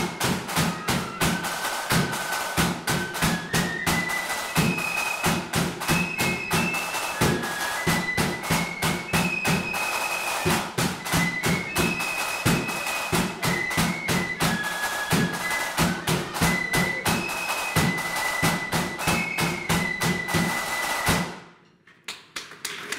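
Marching flute band playing: flutes carry a high stepping melody over rapid side-drum strokes and a bass drum, then the tune stops suddenly about two seconds before the end.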